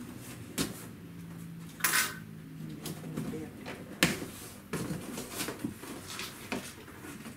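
Handling noise from a cardboard laptop shipping box being opened: a run of knocks, clicks and short scrapes, the loudest about two seconds in.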